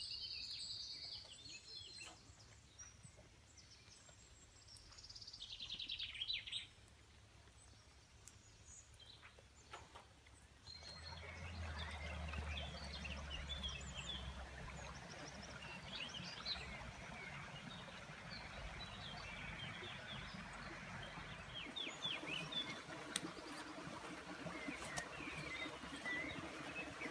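Small birds chirping and singing, with a few short descending trills in the first seconds. About eleven seconds in, a steady hiss of shallow water running down a stony path joins, with the birds calling over it.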